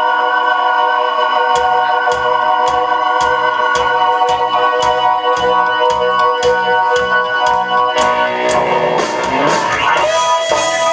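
Live rock band: a sustained organ chord, joined about a second and a half in by a steady drum beat of about two hits a second. Near the end an electric guitar comes in with a rising slide.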